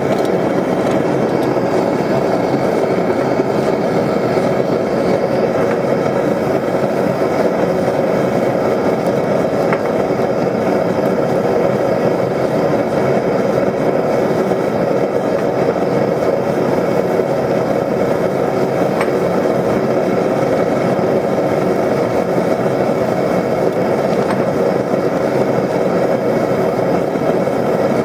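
Propane gas forge's venturi burner running, a steady, unbroken rushing noise.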